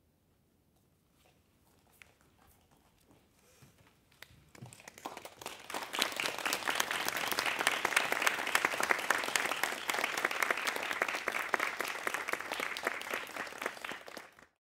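Audience applauding: a few scattered claps at first, swelling about four to five seconds in into full, dense applause that cuts off abruptly near the end.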